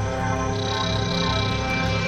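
Synthesized sci-fi UFO sound effect: a dense, steady drone of many held tones over a pulsing low hum. A higher tone comes in about half a second in and fades out near the end.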